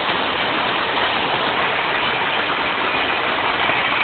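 Passenger train running through the station at speed without stopping, a loud, steady rush of wheels on rails close by.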